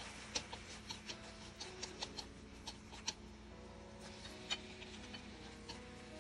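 Irregular sharp clicks and small pops from a pan of stir-frying food, about a dozen scattered through, with faint background music underneath.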